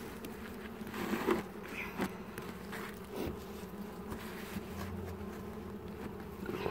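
Honeybees buzzing from an open hive, a steady low hum from the colony on the frame top bars, with a few faint knocks about one, two and three seconds in.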